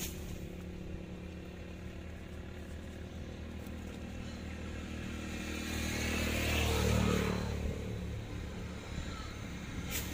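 A motorcycle engine running steadily, growing louder for a couple of seconds about six seconds in before easing off again.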